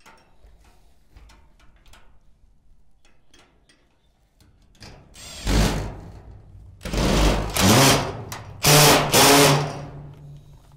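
Cordless drill running in three bursts, one short and two of about a second each, with its pitch rising and falling as it drives 10 mm self-tapping screws through a steel hasp into a sheet-metal shed door. Light handling clicks come before the first burst.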